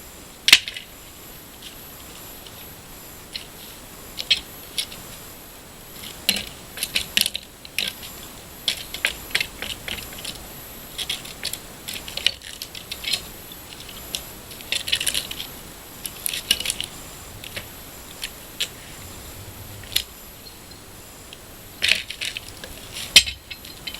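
Wooden pallet being pried apart with a Pallet Buster pallet-breaker bar: irregular clusters of sharp cracks and clinks as the wood gives way under the bar.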